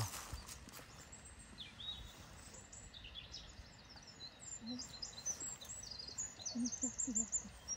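Songbirds singing: many short high chirps and whistled notes from several birds, with a quick trill near the end, over a steady low hiss of outdoor background noise.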